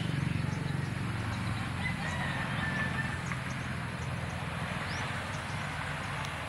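A steady low rumble runs underneath, with a rooster crowing faintly for about a second and a half, starting about two seconds in, and a few small bird chirps.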